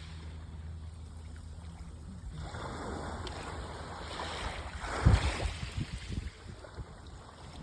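Wind buffeting the microphone outdoors, with a steady low hum for the first two seconds or so and gusts that thump loudest about five seconds in.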